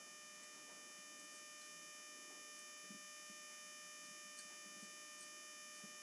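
Faint steady electrical hum, with a few soft, faint taps of a knife cutting boiled gram-flour dumplings (besan gatte) into pieces.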